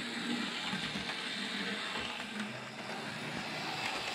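Vintage Hornby Dublo 3-rail N2 tank engine model running round a track loop: a steady whirr of the electric motor and gears with the wheels running on the rails. The locomotive has just had a service and a remagnetised motor.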